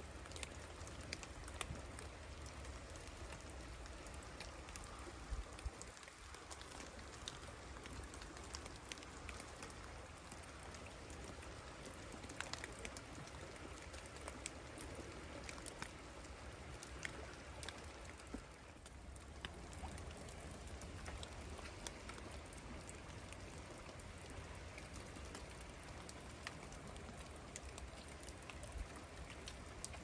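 Faint, steady patter of water drops: many light, irregular ticks over a soft hiss, with a low rumble underneath.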